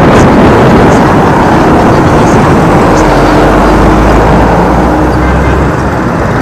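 Loud, steady wind rush and road noise from an electric scooter riding at speed, easing a little near the end as it slows. A low engine drone from a nearby vehicle sounds from about halfway through to near the end.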